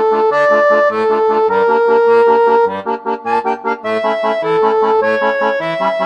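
Background music: an accordion playing a melody in held notes over a steady alternating bass-and-chord accompaniment.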